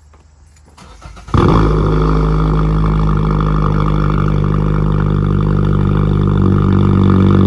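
Radio broadcast audio of an Emergency Alert System monthly test. After about a second and a half of near-dead air, a loud, steady low buzzing drone starts suddenly and holds without change.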